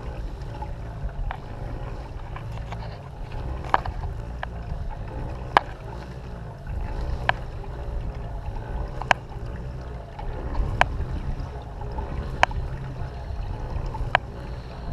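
Pedal kayak moving across calm water: a low steady rumble, with a sharp click or knock about every one and a half to two seconds.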